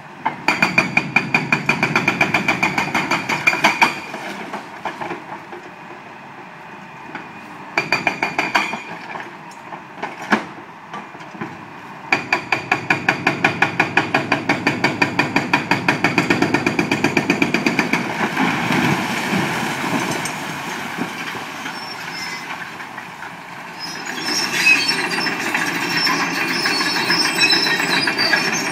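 Hydraulic breaker on a tracked excavator hammering concrete in rapid, evenly spaced blows, in runs of a few seconds with pauses between. Near the end the blows give way to a crackling clatter of breaking concrete.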